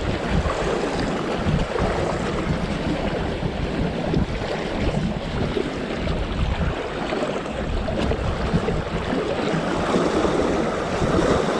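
Waves washing against the shore with wind buffeting the microphone, a steady rushing noise throughout.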